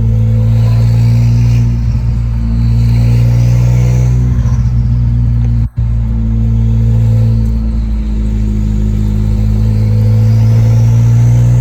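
Car being driven: a steady engine and road drone with faint rising and falling whines above it, cut off for a moment a little past halfway.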